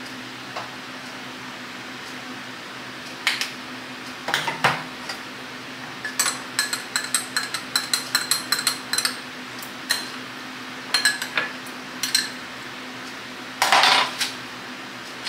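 Metal spoon stirring coffee in a glass mug, clinking against the glass in a quick run of ringing taps, about four or five a second. Scattered knocks of things set down on a counter come before and after, with a louder clatter near the end.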